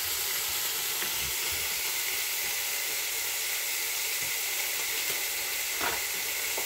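Sliced pork for ginger pork frying in a pan: a steady high sizzle that holds at one level, with a light knock near the end.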